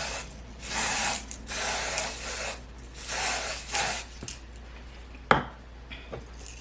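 Ebin lace tint spray hissing in several short bursts as it is sprayed onto a wig stocking cap, followed by a single sharp click about five seconds in.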